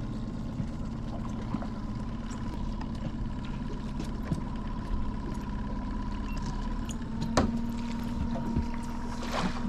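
Boat motor running steadily at trolling speed, an even hum over a low rumble. A single sharp knock about seven and a half seconds in.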